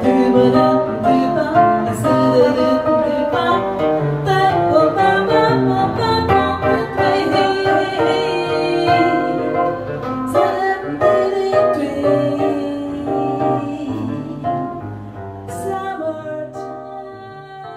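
Female voice singing jazz into a microphone, accompanied by fingerpicked nylon-string classical guitar; the music fades out near the end.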